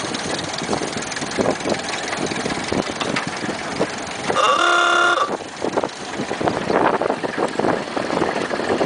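Ford Model A driving along a rough dirt track: engine running with bumping, rattling road noise and wind on the microphone. About halfway through, a car horn sounds once for under a second.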